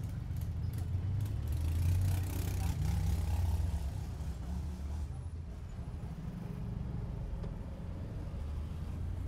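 Street traffic with a minivan's engine running low, loudest in the first few seconds, then settling to a quieter steady engine hum.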